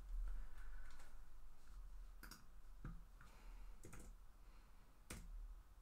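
Computer keys and mouse clicking a few times, sharp and spaced apart, over a low steady hum.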